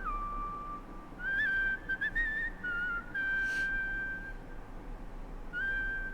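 A whistle-like melody from the rap track's instrumental: one clear tone holding notes and stepping up and down in pitch, with a faint low hum beneath.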